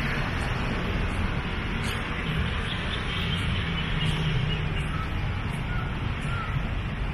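Steady outdoor background noise: wind buffeting the microphone over the hum of distant street traffic, with a few faint bird calls in the middle and later part.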